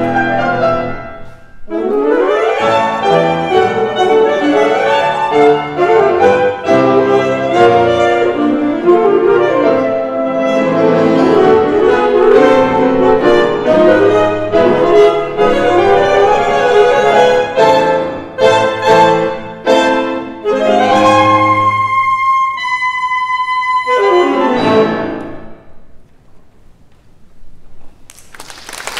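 Two saxophones and piano play fast, dense passages, then a held high note about two-thirds through. A final sweeping gesture follows, and the music dies away. Audience applause breaks out just before the end.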